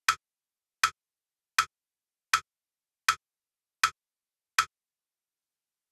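Metronome click pulse beating steady crotchets, seven even clicks about three-quarters of a second apart: the count-in before a violin extract.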